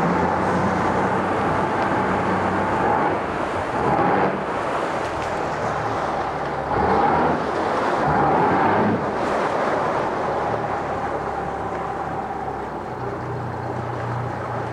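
Yamaha F90 four-cylinder four-stroke outboard running in forward gear in a test tank, its propeller churning the water. The throttle is raised a little a few times, around 4, 7 and 8–9 seconds in, then eased back; it is kept low because the 25-inch shaft sits close to the tank bottom.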